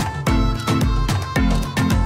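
Background music with a steady drum beat, a little under two beats a second.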